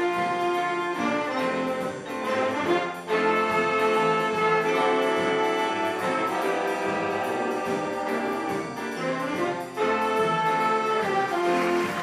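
Student jazz band of saxophones and brass playing long held chords, with new phrases starting about three seconds in and again near ten seconds.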